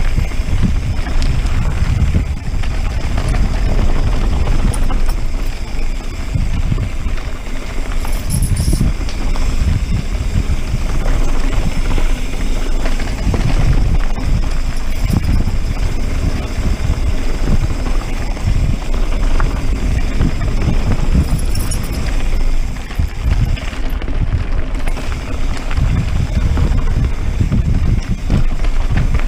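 Mountain bike riding down a dirt and gravel trail: wind buffeting the action camera's microphone in a steady low rumble that surges and eases, with tyres crunching over loose rocks and the bike rattling over bumps.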